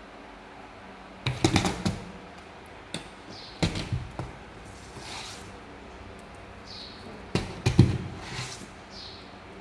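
A kitten clawing and batting at an upright cardboard box, its paws knocking and scratching on the cardboard. There are three short flurries of knocks and scrapes: about a second in, around the middle, and near the end.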